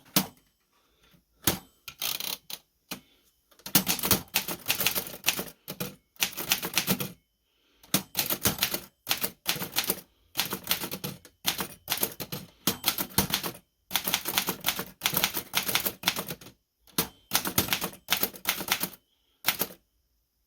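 1925 Remington Portable No. 2 typewriter being typed on: runs of rapid, sharp key strikes with short pauses between them.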